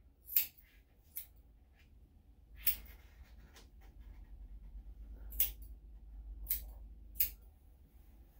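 Grooming scissors snipping the fur on a dog's paw: about six short, sharp cuts at irregular intervals, a second or more apart.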